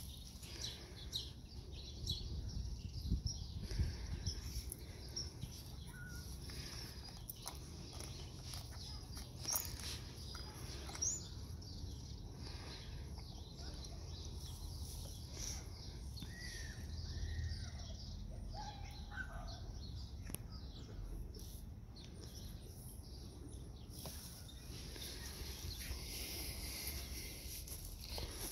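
Outdoor ambience: a steady low rumble with scattered small clicks, and a few faint bird chirps near the middle.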